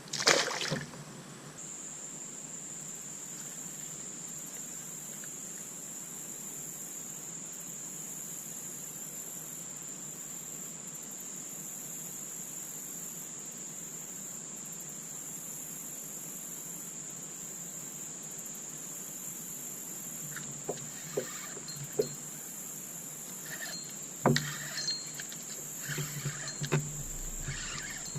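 Steady high-pitched drone of insects, with a short loud noisy burst at the very start and scattered sharp clicks and knocks in the last several seconds.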